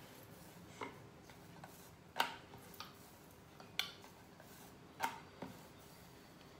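Wooden rolling pin knocking against a plate as dough is rolled out: a handful of sharp, faint clicks at irregular intervals, roughly one a second.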